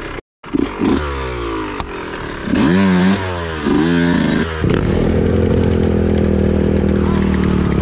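Yamaha dirt bike engine revving up and down with the throttle, then settling into a steady idle a little over halfway through. The sound cuts out briefly just after the start.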